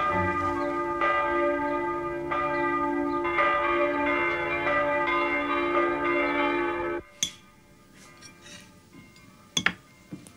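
Bells ringing, fresh strokes about once a second over a sustained ringing, cut off abruptly about seven seconds in. After that the room is quiet apart from a few sharp light clicks.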